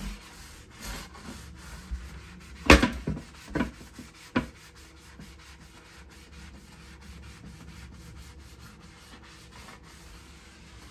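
A brush scrubbing the ridged grill plate of a George Foreman electric grill in a sink, a faint rhythmic scratchy rubbing. A few knocks in the first half, the loudest about three seconds in.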